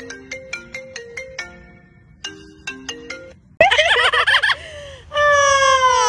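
A phone ringtone of short, clean marimba-like notes plays in two runs. About three and a half seconds in it cuts to a parrot's loud wavering call, followed by a long falling call near the end.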